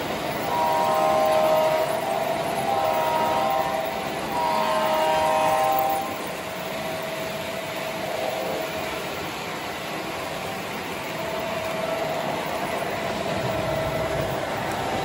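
Model train locomotive's sound system blowing its horn in three blasts over the first six seconds, with the steady rolling and clicking of model freight cars passing close by on the track.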